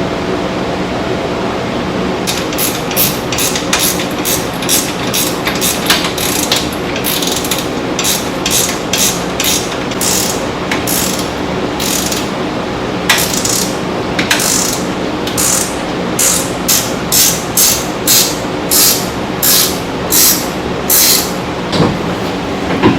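Hand ratchet wrench clicking in repeated strokes as lock nuts are run down onto the bolts of a new exhaust bracket. The strokes come in short runs, then settle into an even back-and-forth rhythm over the last several seconds.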